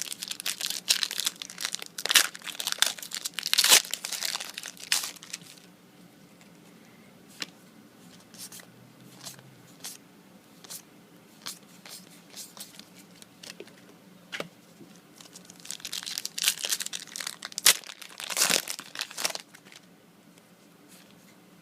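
Foil booster pack wrappers being torn open and crinkled, in two spells of loud, dense rustling, one at the start and one past the middle, with sparse light clicks and rustles of trading cards being handled in between.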